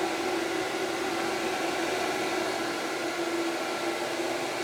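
A 6-inch, 200 CFM inline duct fan running at its maximum speed: a steady rush of air with a constant hum underneath, pulling air through a flexible aluminium duct.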